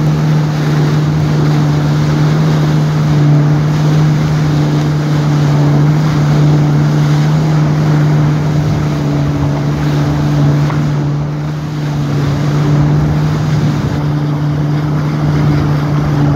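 Jet ski engine running at a steady cruising speed, a constant low drone, over the hiss of water spray from the wake and wind on the microphone.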